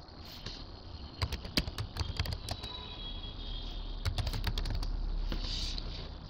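Computer keyboard keys clicking in short irregular runs as a password is typed and entered, with a low steady hum underneath for a couple of seconds near the end.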